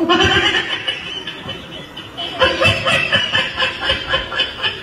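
Audience laughing, starting suddenly and breaking into quick repeated bursts of laughter about halfway through.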